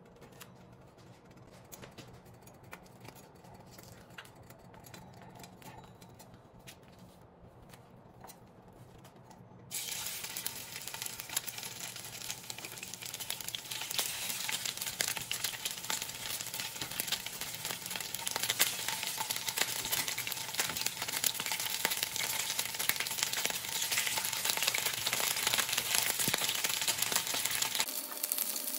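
Raw maple sausage patties frying in hot oil in a pan. A faint crackle is followed, about ten seconds in, by a sudden loud, dense sizzle as the first patty goes into the oil, and the sizzle keeps on as more patties are added.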